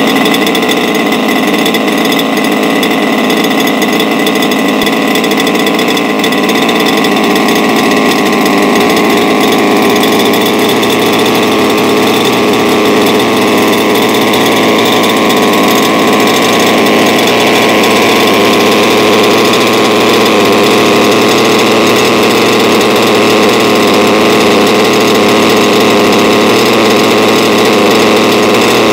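Water-cooled RCMK twin-cylinder two-stroke engine in an HPI Baja 5SC RC car running steadily on a stand during break-in, at about 5,000 rpm.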